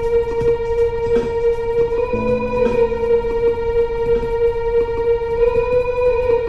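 Experimental ambient music built on one long held note with its overtones, with a few short notes over it and a brief lower note about two seconds in.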